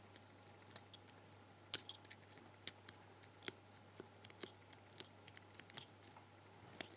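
Light, irregular clicks and taps of a disassembled pin-tumbler lock's parts being handled, several a second with no steady rhythm, over a faint steady low hum.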